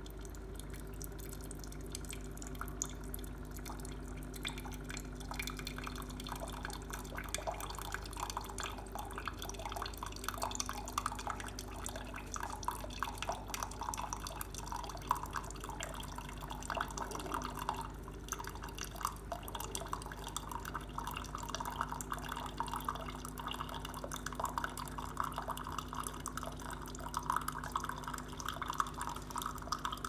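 Cuisinart single-serve coffee brewer dispensing a thin stream of hot coffee into a ceramic mug, with continual dripping and splashing over a steady low hum.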